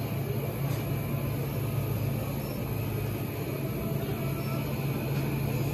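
Steady low hum and room noise of a shop interior, with no clear single event.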